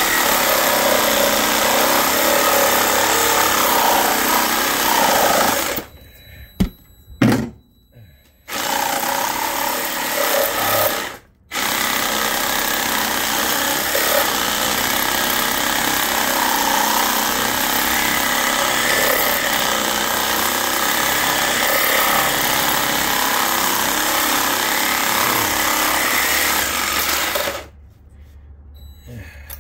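Reciprocating saw (Sawzall) cutting through a transformer's copper windings in long loud runs, stopping briefly about six and eleven seconds in and stopping near the end.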